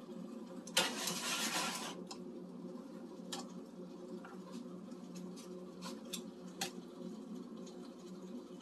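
Metal spoons scraping and clicking in a metal mixing bowl as quenelle mixture is scooped and shaped: a scrape lasting about a second near the start, then a few light clicks, over a steady low hum.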